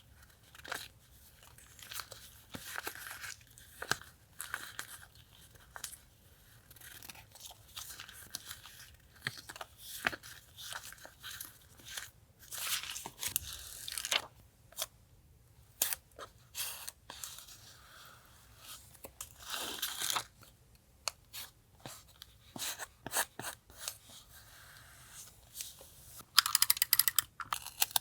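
Paper and stickers being handled for a collage journal page: irregular tearing, rustling and small taps. A louder, dense crackling stretch comes near the end.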